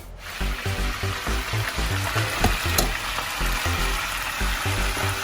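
Pork hock frying in hot oil in a wok with onion and garlic: a steady sizzle that comes up just after the start, with a couple of sharp utensil clicks near the middle.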